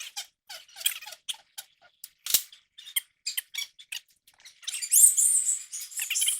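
Short metal squeaks and ticks from a tie rod end being turned by hand on its threads, with one sharp click a couple of seconds in and a louder scraping rush near the end.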